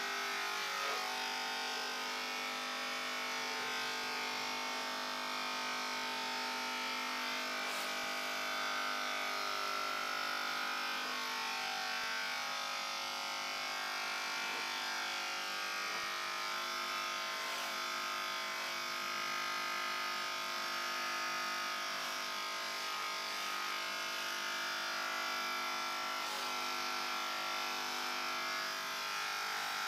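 Corded electric hair clippers buzzing steadily as they run through hair, with a few faint ticks.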